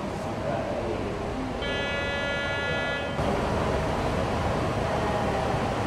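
Steady background noise with a low rumble. A high steady tone sounds for about a second and a half, starting about a second and a half in. The noise gets slightly louder just after three seconds in.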